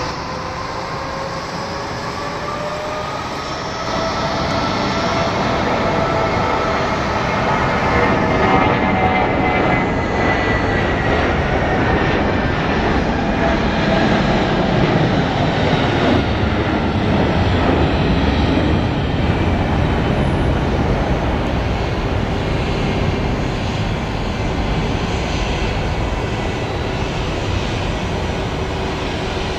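Airbus A320-232's twin IAE V2500 turbofans at takeoff power through the takeoff roll and climb-out. A whine rises in pitch over the first several seconds above a steady rumble. The sound grows louder about four seconds in, is strongest in the middle, then eases slightly as the jet climbs away.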